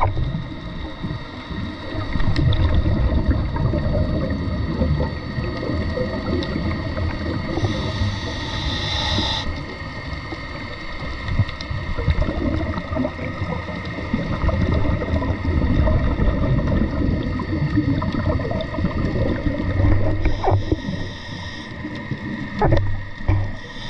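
A scuba diver breathing through a regulator underwater: a hissing inhale about eight seconds in and again about twenty seconds in, with long stretches of bubbling, rumbling exhaust bubbles from the exhale in between.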